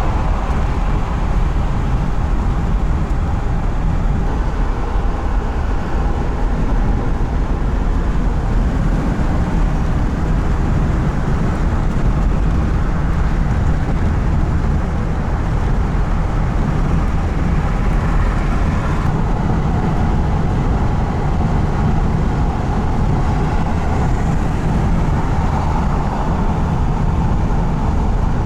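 A motor vehicle under way: loud, steady engine and road noise, heaviest in the low end, with no change in level.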